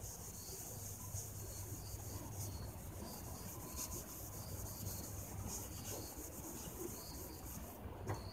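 Terry-cloth towel rubbed by hand over a cloudy plastic headlight lens, polishing it with liquid compound: a faint, steady rubbing.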